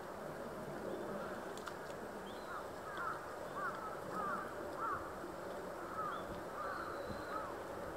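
Waterbirds calling on a pond: a string of short, bending calls, most of them packed into the middle few seconds, over steady background noise.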